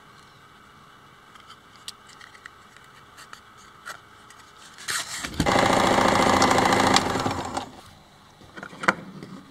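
Electric sewing machine running in a short burst of stitching for about two and a half seconds, after a few small handling clicks.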